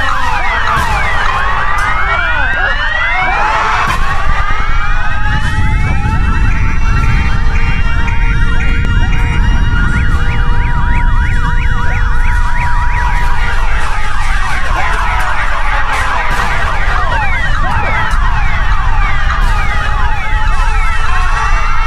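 Several emergency sirens wailing at once, their pitches rising and falling across one another, over a steady low rumble.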